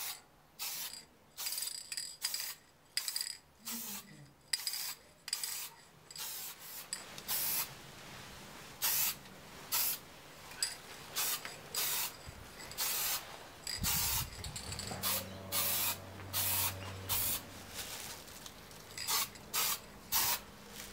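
Aerosol spray can of clear coat hissing in short bursts, about one a second, with a few longer passes as the coat goes onto the exhaust tips.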